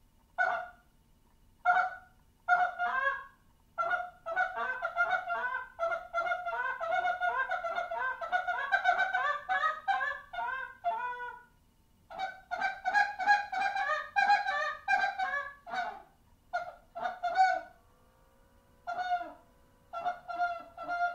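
Zink Little Man short-reed goose call fitted with worn-in black Zink guts, blown by mouth. It gives a few spaced single honks, then two long fast runs of clucks with a short break between them, then more single honks.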